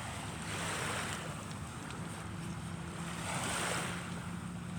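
Small waves washing onto the shore, swelling twice, with a faint steady low hum underneath.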